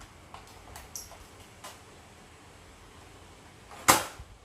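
Light plastic clicks from a toy Nerf blaster being handled, then one loud sharp snap about four seconds in.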